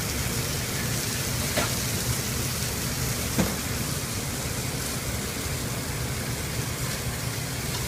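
Venison medallions searing in a pan over high heat, sizzling steadily, with a couple of small pops.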